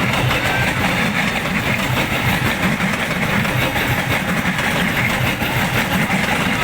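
KRL Commuter Line electric train running past, a steady rumble of wheels on the rails.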